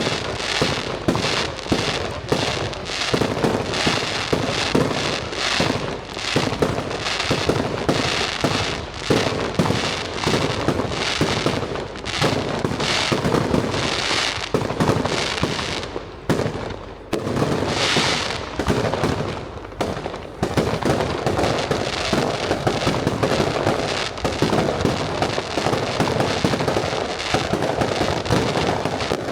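Aerial fireworks bursting in rapid succession: overlapping booms and crackling with only brief lulls.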